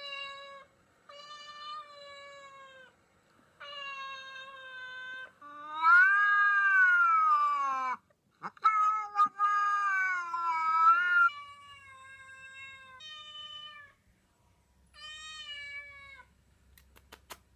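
Recorded cat meows played back: a series of about seven drawn-out meows with short gaps, the two in the middle loudest and bending up then down in pitch. A few sharp clicks near the end.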